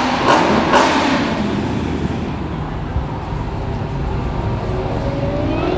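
Car engine exhaust passing with a series of sharp bangs about twice a second that stop about a second in, its noise fading away. A steady low engine rumble follows, with an engine revving up near the end.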